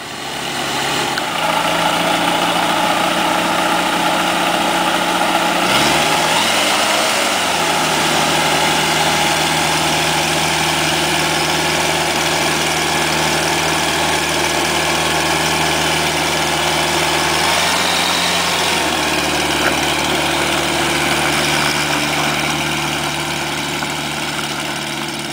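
Flight Design CTSW light aircraft's Rotax 912 flat-four engine, just started and running steadily at low power with the propeller turning. The revs rise and fall briefly about six seconds in and shift again around eighteen seconds. The sound eases off a little near the end as the plane taxis away.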